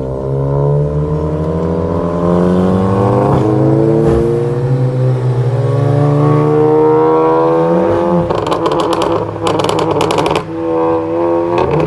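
Tuned VW Golf GTI Mk7's turbocharged 2.0 TSI four-cylinder, running a stage 3 tune through straight pipes, pulls hard with the revs climbing steadily for about eight seconds. On lift-off the exhaust breaks into a rapid burst of crackles and pops, settles into a steadier note for about a second, then crackles again near the end.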